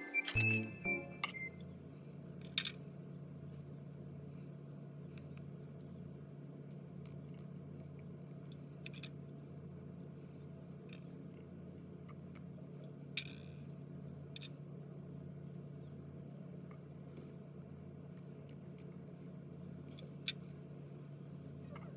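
A steady low hum with a few scattered light clicks and taps. A tune with whistling fades out in the first second or so.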